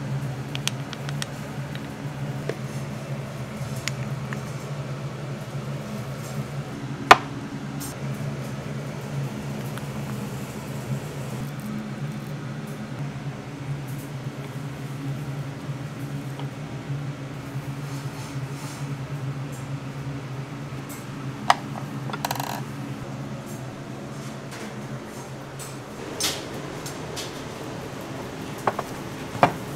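Ceramic dishes and utensils clinking now and then as small bowls and plates are filled and set on a serving tray, over a steady low kitchen machine hum. One sharp clink about seven seconds in is the loudest.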